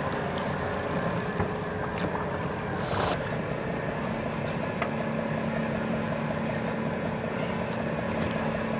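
A fishing boat's engine running steadily, with a short rush of noise about three seconds in.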